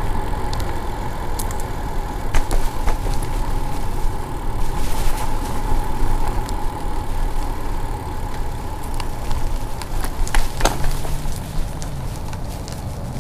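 Wind and road rumble on the microphone of a bicycle riding along a paved trail, with a few sharp clicks and rattles. A steady high hum runs underneath and stops about ten seconds in.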